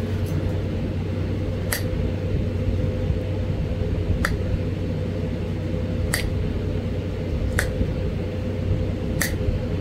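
Small sharp snaps of pressure flakes coming off the edge of a Florida coral arrowhead, five in all, one every second or two, over a steady low hum.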